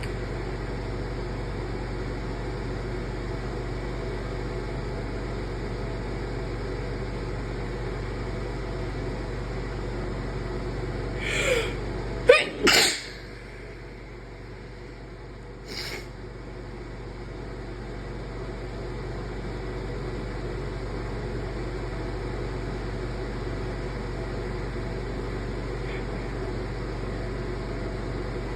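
One induced sneeze about halfway through: a short breathy build-up, then a sharp, loud burst. A brief, fainter breath or sniff follows a few seconds later, over a steady background hum.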